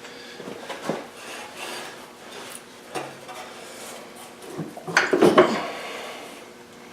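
Metal clanking and rattling from work on a tractor: a few separate knocks, then a louder cluster of clanks about five seconds in.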